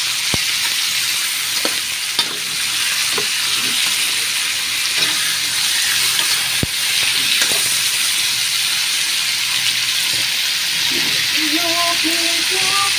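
Chicken pieces sautéing in a hot pan, a steady loud sizzle, with a stirring utensil knocking against the pan now and then, sharpest twice.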